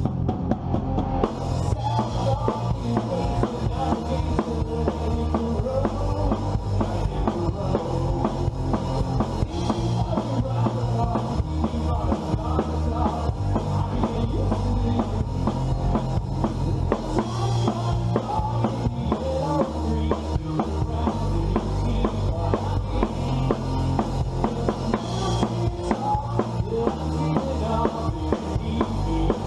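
A band playing an upbeat pop-rock song, with a full drum kit keeping a steady beat under a bass line and melodic parts.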